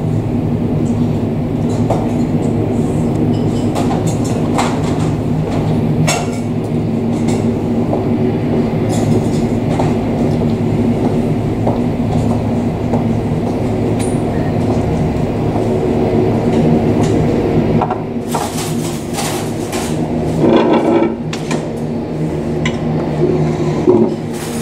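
BAe Jetstream 32 twin turboprop taxiing, its Garrett TPE331 engines and propellers running with a steady drone made of several low engine tones. A few brief sharp noises come near the end.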